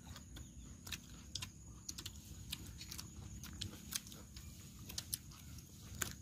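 Faint scattered clicks and smacks of people chewing and of a roasted chicken being torn apart by hand.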